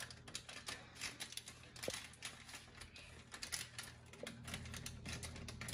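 Plastic inner bag of a boxed brownie mix being pulled and torn open by hand: a run of faint, irregular crinkles and crackles.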